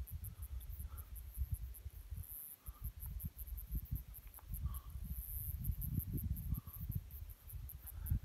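Wind buffeting the microphone in uneven low gusts, with insects chirping in a fast, high-pitched pulsing chorus from the tussock grass.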